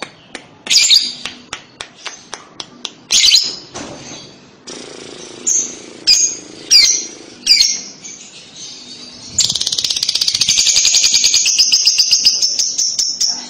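Fischer's lovebird giving sharp, shrill chirps several times, then from about nine and a half seconds in a long, rapid rattling chatter (the 'kekekan' trill) lasting about four seconds.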